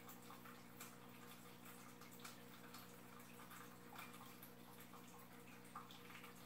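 Faint aquarium filter running: water trickling and dripping into the tank with scattered small ticks, over a low steady hum.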